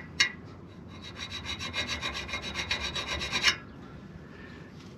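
A sharp metallic clank, then about two and a half seconds of fast, even rasping as a new steel exhaust pipe scrapes against its coupler, growing louder before stopping abruptly.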